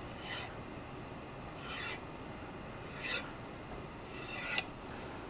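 Light strokes of a Hatsukokoro 210 mm gyuto blade drawn edge-trailing across the suede side of a leather strop, about four short hissing swipes, stropping the tip section to clean off the burr. A sharp click follows the last stroke near the end.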